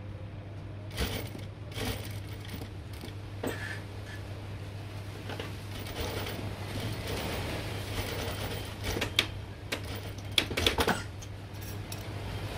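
Sewing machine at work: a steady low hum with scattered clicks and rustling over it, and a cluster of sharper clicks about nine to eleven seconds in.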